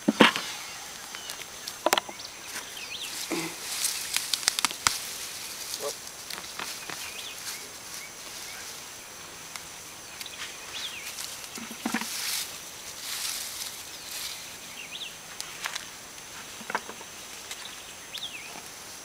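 Scattered rustling, scraping and soft knocks of potatoes being dug out of garden soil by hand, over a steady high insect hum, with a few short high chirps.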